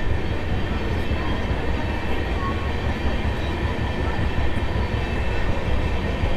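Train running on the track: a steady low rumble of wheels and running gear, with faint steady tones above it.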